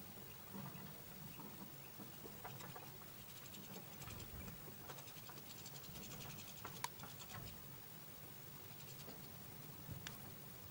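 Goldfinch and bullfinches pecking sunflower seeds in a plastic feeder tray: faint scratchy clicks and ticks of beaks on seed husks and seeds shifting, with a sharper click a little past the middle and another near the end.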